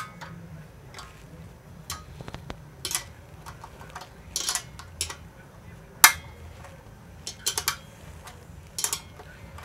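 A No. 14 wrench working a bolt on a steel rack frame: irregular light metallic clicks and clinks, about one a second, the sharpest about six seconds in.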